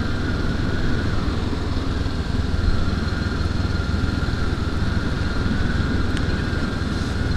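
Honda CL500 motorcycle's parallel-twin engine running at a steady, even pitch, with no revving up or down.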